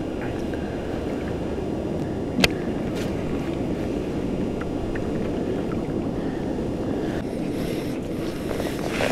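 Steady wind buffeting the microphone and ocean water lapping at a fishing kayak. There is one sharp click about two and a half seconds in.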